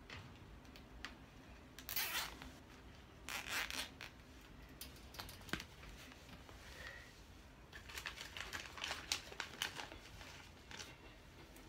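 Nylon cable ties being pulled tight around wire lattice panels: two short rasping zips about two and three and a half seconds in, then a run of quick clicks near the end.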